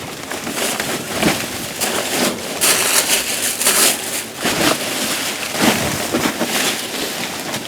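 Irregular rustling, crinkling and knocking of trash and packaging being rummaged through in a dumpster, with wind buffeting the microphone.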